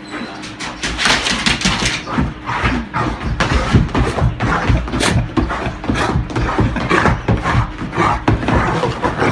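A run of irregular knocks, scuffs and rustles from close movement and handling, coming thick and fast with no steady rhythm.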